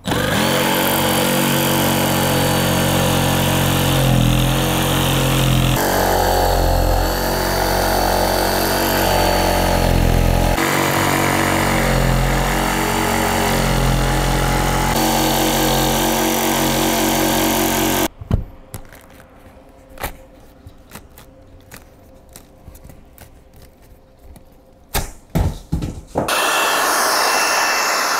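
Cordless jigsaw with a long blade cutting through the camper's 2.5-inch high-density foam roof. Its motor runs with a steady whine for about eighteen seconds, the pitch shifting a few times during the cut. Then it stops and scattered clicks and knocks follow, before a loud steady noise returns near the end.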